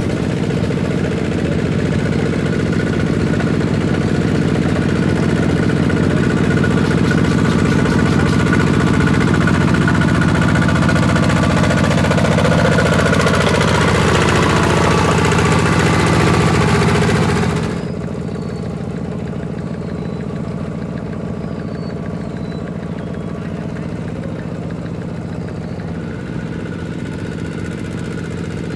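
Single-cylinder diesel engine of a two-wheel walking tractor running steadily under load as its cage wheels plow wet paddy soil. About two-thirds through, the engine sound drops suddenly to a quieter, duller level.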